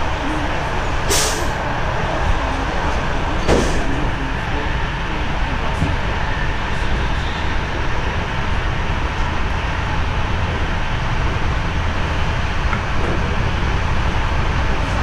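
Steady rumble of a passenger train running at speed, heard from inside the carriage, with two short sharp clacks about one and three and a half seconds in.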